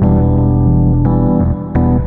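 Background music: held chords that change a few times over the two seconds.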